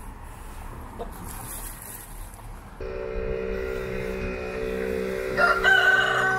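A rooster crows, one long loud call that starts about a second before the end, over a steady hum.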